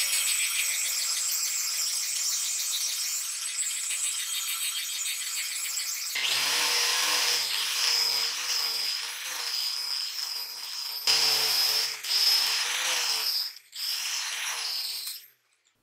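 Angle grinder with an abrasive disc grinding a car-spring steel knife blade: a motor whine with a rasping hiss from the disc on the steel. About six seconds in it gets louder and its pitch wavers as the disc is worked along the edge. It breaks off for a moment near the end, runs again briefly, then stops.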